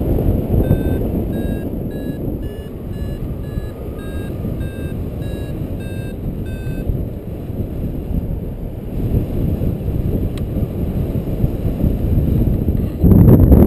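Paragliding variometer beeping about twice a second, its climb tone signalling rising air, over steady wind rush on the microphone. The beeps stop about halfway through, and a loud gust of wind hits the microphone near the end.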